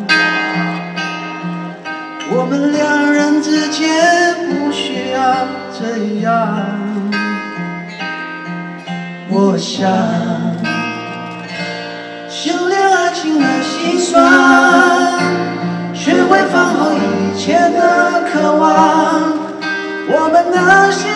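A male voice singing a slow ballad live, accompanied by a strummed acoustic guitar.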